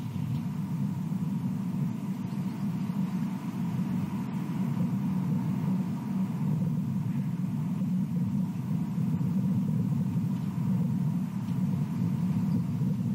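Steady low rumble of outdoor background noise picked up by a nest-cam microphone, unchanging throughout, with a faint steady high hum above it.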